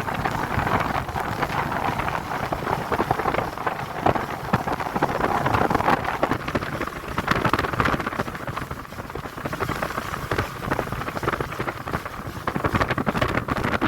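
Dense rushing noise with many small crackles on the microphone of a motorcycle being ridden in rain: rain and wind striking the mic, easing somewhat in the second half.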